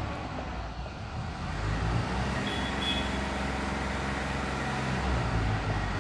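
A motor vehicle's engine running as traffic noise, a steady low rumble that swells about two seconds in and holds.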